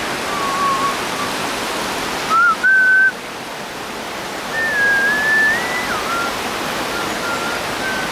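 A person whistling a few long, clear notes that step and slide in pitch, over a steady rushing background noise.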